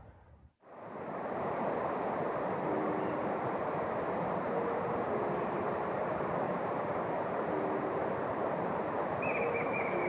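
A steady, even rushing noise that starts after a brief cut about half a second in, with a few short high chirps near the end.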